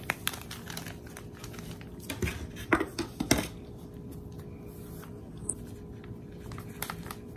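Crinkling and rustling of a plastic bag of glutinous rice flour as it is handled, with scattered light taps. The bag is poured into a plastic measuring cup, and the sounds are loudest for a moment a couple of seconds in.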